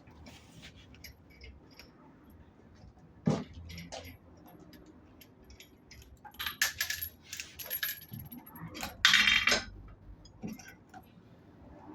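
Small metal pieces clinking and rattling as they are handled, with a single knock about three seconds in and a short, loud, harsh scrape around nine seconds in.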